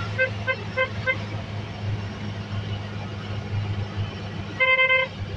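Auto-rickshaw engine running steadily with a low hum while riding, heard from inside the cab. A horn gives a quick run of short beeps, about four a second, in the first second, then one louder held honk of about half a second near the end.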